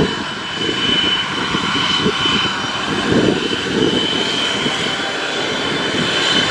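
RCAF CF-18 Hornet fighter jets taxiing, their General Electric F404 turbofans running at low power with a steady high whine over a rushing rumble.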